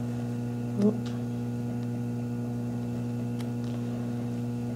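Steady electrical mains hum with a low buzz. There is a brief soft sound just under a second in and a couple of faint clicks.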